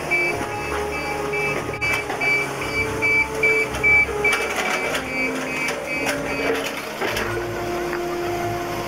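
Heavy construction machinery working: a reversing alarm beeping rapidly over a diesel engine, with metallic clanks. The beeping stops a little over six seconds in.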